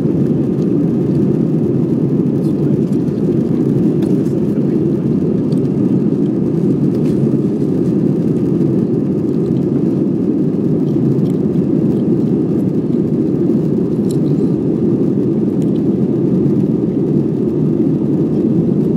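Jet airliner cabin noise: the engines and rushing air heard from inside the passenger cabin as a steady, even rumble.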